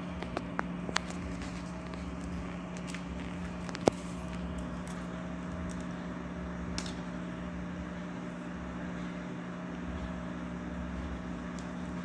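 Occasional small clicks and taps of hands and tools working on a ceiling fan being dismantled, the sharpest one about four seconds in, over a steady low hum.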